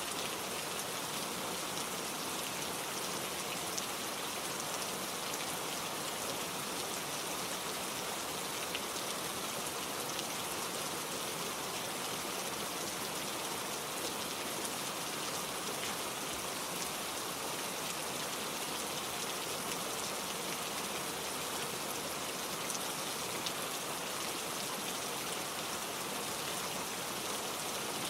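Steady gentle rain falling, an even hiss of drops with faint scattered patter and no thunder.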